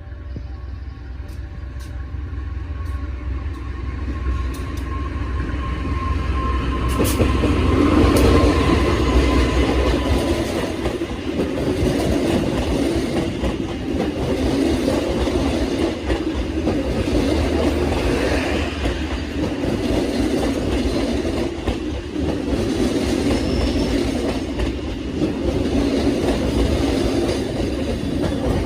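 CC 206 diesel-electric locomotive approaching and passing, its low engine rumble building over the first eight seconds. The coaches follow, rolling past with a steady clatter of wheels over the rail joints.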